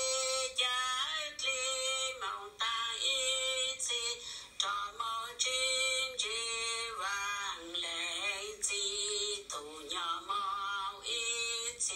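A single voice singing in long held notes, phrase after phrase with short breaks between, many phrases ending in a slide down in pitch, and a wavering stretch a little past the middle.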